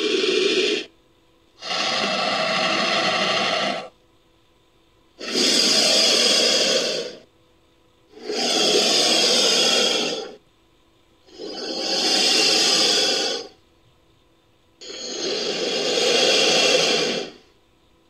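Invented creature calls for the snake-like prehistoric amphibian Ophiderpeton, built from a Titanoboa sound effect. The call comes as a rough, hiss-like rasp about two seconds long. The end of one call is heard, then five more follow, each separated by about a second of silence.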